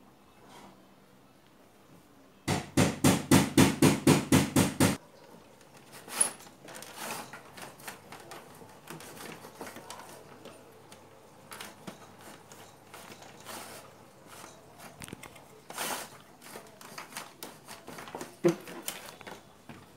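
Hands working a CRT television's chassis and circuit board: a loud run of rapid knocks, about five a second, lasting about two and a half seconds, then scattered light plastic clicks and rattles as the board is handled, with one sharp knock near the end.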